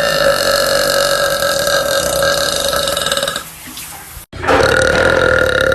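A girl burping loud: one long, steady-pitched burp lasting about three and a half seconds, then after a short break a second long burp that starts near the end.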